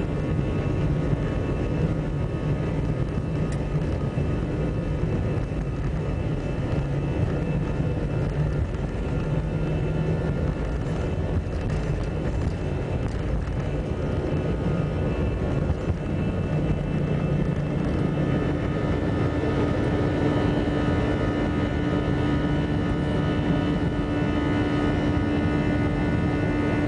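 Airbus A320 jet engines at takeoff thrust, heard inside the passenger cabin: a steady loud roar with a high fan whine over it and the rumble of the wheels on the takeoff roll. About two-thirds of the way through, as the aircraft lifts off, the low rumble eases and a steady hum comes in.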